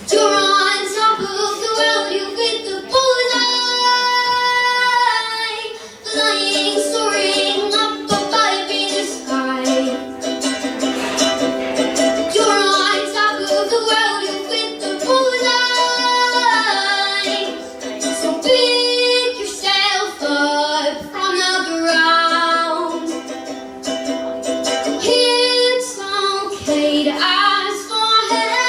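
A woman singing a slow song to a plucked acoustic string accompaniment.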